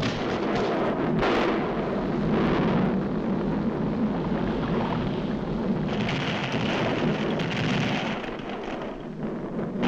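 Cartoon sound effect of a volcano erupting: a dense, continuous rumble. A hissing layer swells about six seconds in and then eases.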